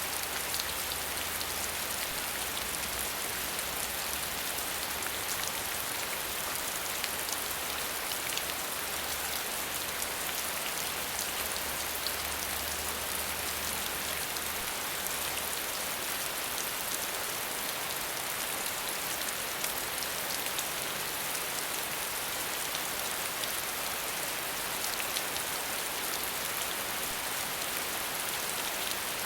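Steady hiss of falling water, with a faint patter of drops scattered through it.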